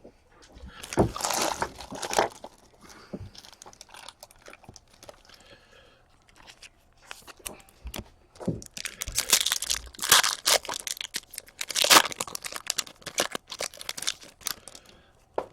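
Trading card pack wrapper crinkling and tearing as a hockey card pack is opened, in two bursts about a second in and again from about nine to thirteen seconds in, with quieter handling between.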